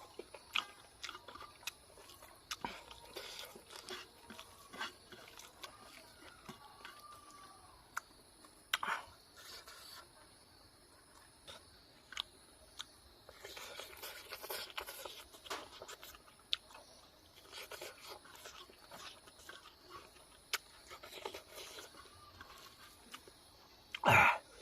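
Close-miked eating: chewing and crunching food, with many small mouth clicks and smacks, and one louder burst near the end.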